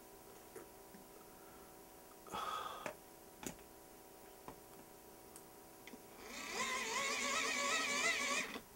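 Eton hand-crank charger being cranked: a whirring dynamo and gear whine that wavers in pitch, starting about six seconds in. Before that, a brief rustle and a sharp click as the plugged-in iPod is handled.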